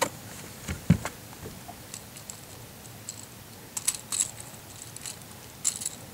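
Pliers and a small crankbait's treble hooks clicking and clinking in a few quick clusters as the lure is worked out of a bass's mouth, with a dull knock about a second in.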